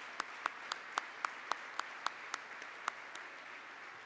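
Audience applauding. One clapper stands out with sharp, steady claps at about four a second, which stop about three seconds in, and then the applause begins to die away.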